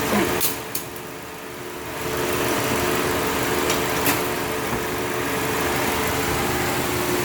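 Car engine idling steadily with the air conditioning running, a steady mechanical hum with a few fixed tones. A few sharp clicks come about half a second in and again near four seconds.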